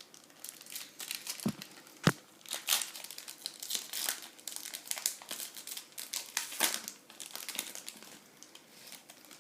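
A trading-card pack wrapper being torn open and crinkled by hand, with irregular crackles throughout and two sharp knocks about two seconds in.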